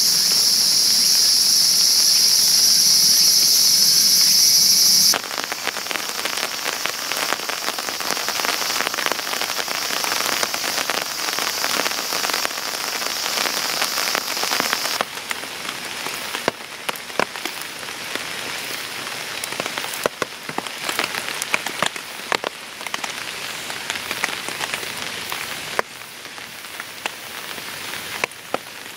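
A steady high-pitched insect chorus over rain for about five seconds, then rain pattering on a tent tarp, with many separate drops ticking. The rain sound drops in level in two steps.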